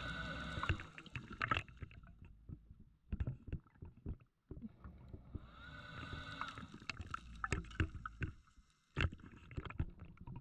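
Scuba diver breathing underwater through a regulator, two breaths: each is a hissing inhale with a whistling tone, followed by a low, crackling burble of exhaled bubbles.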